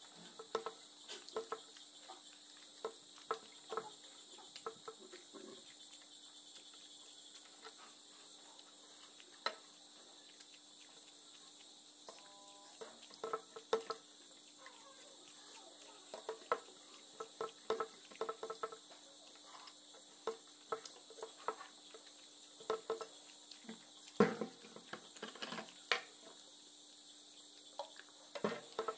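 Close-up eating sounds: wet chewing and lip smacks as rice and curry are eaten by hand, with now and then a tap on the steel plate, the sharpest about two-thirds of the way through. Underneath runs a steady high chirring of crickets and a faint low hum.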